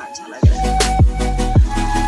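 Background music with a deep, booming bass drum hitting nearly twice a second over held tones; the beat drops back in about half a second in after a brief quieter break.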